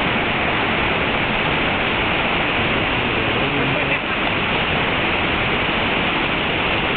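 Waterfall: a steady, loud rush of falling water with no break or change.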